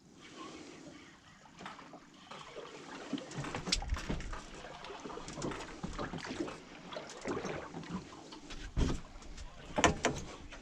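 Water lapping and sloshing around a small fishing boat, with irregular knocks and clicks of gear being handled, louder and busier from about three seconds in.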